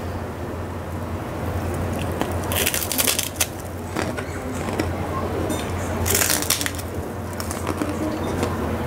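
Crisp krupuk (Indonesian puffed cracker) being bitten and chewed: two bouts of crunching, about two and a half seconds in and again about six seconds in.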